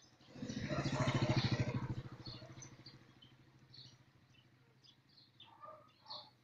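A small motorbike engine passing close by, swelling to its loudest about a second in and fading away over the next couple of seconds.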